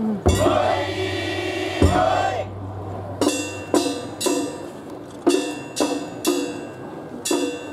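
Many voices chant together for about two seconds, with a rise in pitch near the start and the end. Then sharp, ringing percussion strikes come in groups of three, about two strikes a second, with a pause between groups: festival float music.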